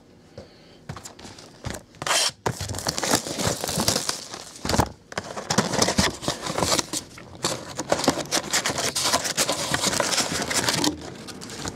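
Foil-wrapped trading card packs crinkling and rustling as they are pulled by hand out of cardboard boxes and stacked, with scraping against the box, starting about two seconds in.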